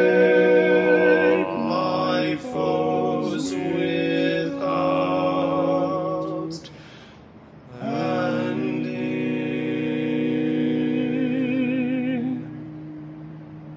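Male vocal quartet singing a hymn in four-part harmony: one phrase, a short breath about halfway through, then a long held chord with vibrato that fades out near the end.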